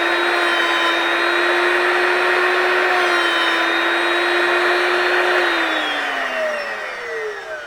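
Drill Doctor drill-bit sharpener's electric motor running at speed with a steady whine and the hiss of the grinding wheel sharpening a drill bit. About two-thirds of the way through it is switched off and the whine falls in pitch as the wheel spins down.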